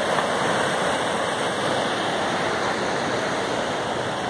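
River rapids rushing steadily over rocks, a constant even rush of white water.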